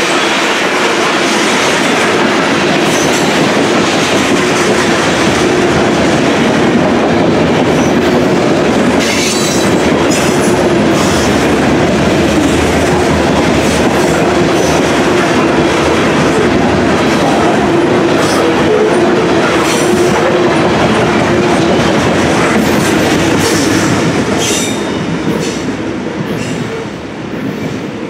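Freight train of covered grain hopper cars rolling past close by: a continuous loud rumble and clatter of steel wheels on the rails, with some sharp high squeals now and then. It fades and wavers near the end as the last cars pull away.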